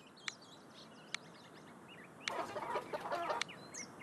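Farmyard hens clucking among small birds chirping, with a louder burst of clucking about two seconds in lasting about a second. Two sharp clicks come in the first second.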